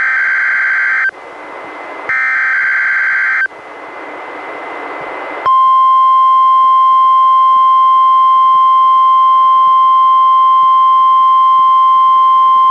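NOAA Weather Radio Required Weekly Test heard through a weather radio receiver. The last two of the three SAME digital header bursts (buzzy two-tone data screeches about a second and a half each) are separated by rising radio hiss. About five and a half seconds in, the steady 1050 Hz NWR warning alarm tone starts and holds.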